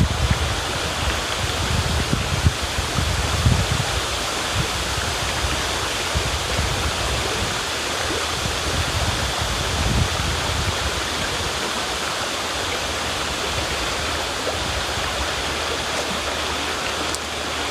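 River water rushing and splashing steadily, with deeper low surges in the first half.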